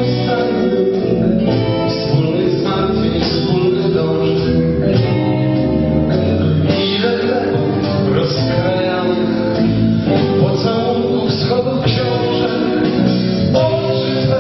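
Live rock band playing a slow song: keyboards, electric guitar, bass and drums, with a male voice singing over them.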